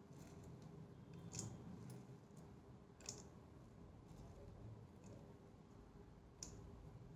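Faint, sparse clicks of dried split chickpeas (chana dal) as spilled grains are picked up by hand off a tiled floor, about five clicks over several seconds, in near silence.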